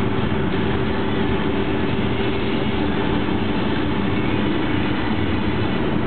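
Interior noise of a Volkswagen T1 camper at motorway cruising speed: the rear-mounted air-cooled flat-four engine running steadily, mixed with road and wind noise.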